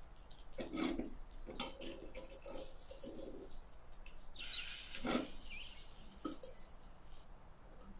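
Small metal utensils clinking and scraping against a miniature aluminium pan in short, separate strokes.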